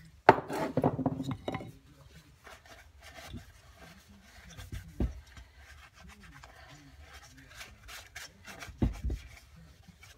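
Rubbing and wiping on the Norton Commando's cylinder barrels, loudest in the first second or two, as the bores are cleaned of grit and given a little oil. A dull knock comes about halfway through and another near the end.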